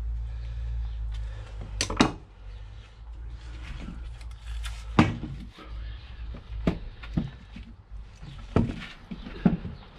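Sharp knocks and clicks from a car driveshaft and its CV boot clip being handled on a wooden workbench, over a steady low rumble. Two come in quick succession about two seconds in, and the rest are spread singly through the second half.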